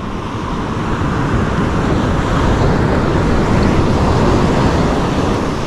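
Steady wash of surf breaking on the shore, mixed with wind rumbling on the microphone.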